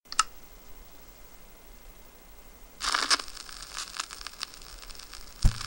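Faint rustling and handling noise over a quiet hiss: a sharp click at the start, a brief rustle about three seconds in followed by a few light clicks, and a low knock near the end.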